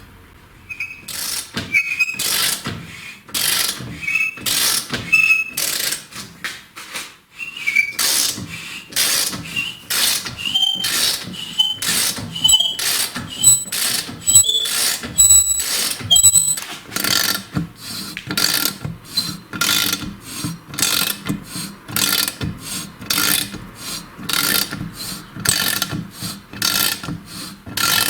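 Line reamer cutting through the aluminium camshaft bearing seats of a cylinder head, turned by hand in short repeated strokes, nearly two a second, each with a squeaking, chattering scrape. A squealing tone rises in pitch through the first half.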